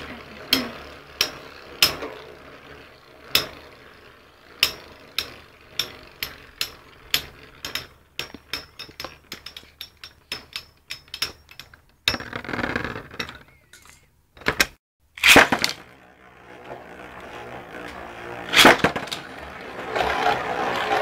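Two Beyblade spinning tops clashing in a stadium: a run of sharp clacks as they strike each other, at first about one a second, then quicker for a few seconds in the middle. A few longer, louder bursts of noise follow later.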